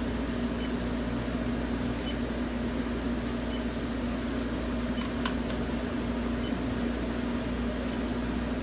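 Electronic refrigerant leak detector running with a steady low hum and a faint tick about every second and a half, its slow idle rate: it is not picking up refrigerant.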